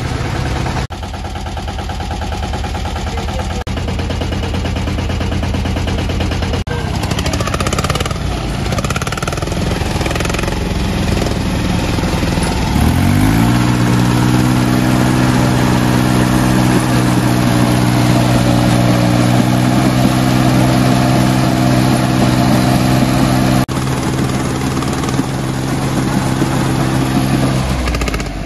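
Small diesel tractor engines running with a knocking chug. About twelve seconds in, the Mitsubishi Shakti mini tractor's engine revs up and holds a steady, higher pitch under heavy load as it tows the stuck tractor by a chain, until near the end.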